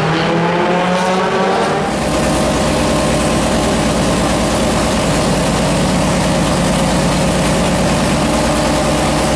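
The Chevrolet big-block V8 of a 1971 McLaren M8F Can-Am car running. Its note rises slightly for the first two seconds, then it holds a steady idle for the rest.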